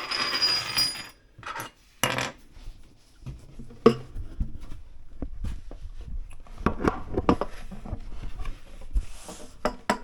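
Small metal cabinet-hinge parts clinking, rattling and clicking as they are handled and taken apart: a burst of rattling in the first second, then a string of separate clicks and knocks.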